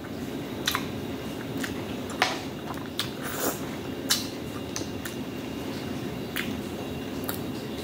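Close-up eating sounds: about a dozen sharp clicks and smacks at irregular intervals as clams are eaten by hand from the shell, over a steady low background hum.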